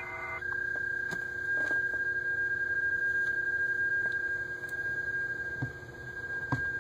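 PSK31 (31-baud phase shift keying) signal from the laptop's digital-mode software sending a CQ call: a single steady, thin, whistle-like tone, with a few faint clicks.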